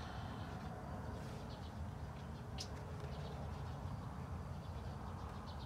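Outdoor field ambience: a steady low rumble of wind and handling on a phone microphone, with a few faint short high chirps and one sharp click about two and a half seconds in.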